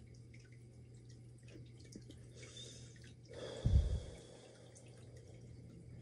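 A man exhaling cigarette smoke: one loud breathy puff about three and a half seconds in, lasting under a second, with a low rumble as the breath hits the microphone. Otherwise only a faint steady hum and a few light ticks.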